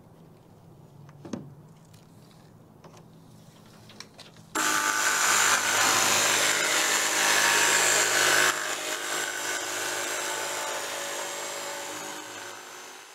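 Corded jigsaw cutting a sheet of quarter-inch plywood underlayment. It starts suddenly about four and a half seconds in, runs loud for about four seconds, then tapers off.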